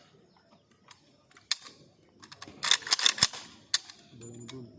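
Metal clicks and clacks of rifle parts being handled and fitted together: a few separate sharp clicks, then a quick flurry of rattling clacks around three seconds in, and one more click after it.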